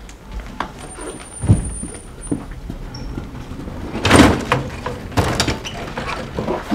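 A door opening and a booth cart being pushed in through it, with knocks and rattles; a heavy thump about a second and a half in, and the loudest clatter about four seconds in.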